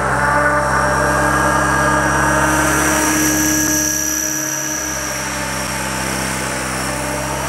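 Electric RC helicopter, an Align T-REX 600 ESP, with its motor whining and main rotor spinning at speed as it lifts off; the whine rises a little about three seconds in and the sound gets slightly quieter about four seconds in as it climbs away.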